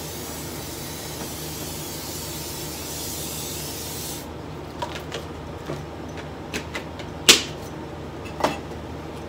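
Aerosol cooking-oil spray can hissing in one long continuous spray for about four seconds, then stopping. A few light clicks and knocks follow, the loudest a sharp knock about seven seconds in.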